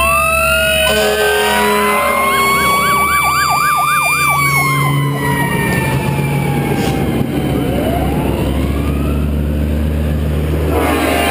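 Fire engine sirens sounding as fire trucks drive past: a rising wail, then a fast yelp, with pitches that fall as each truck goes by and more than one siren overlapping. The trucks' diesel engines rumble underneath. Near the end, a heavy truck passes close, with a louder rush of engine and road noise.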